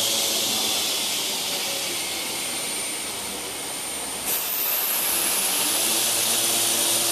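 Machinery running steadily, a loud hissing rush with a thin high whine. About four seconds in there is a brief bump, and a higher whine starts and slides slowly down in pitch.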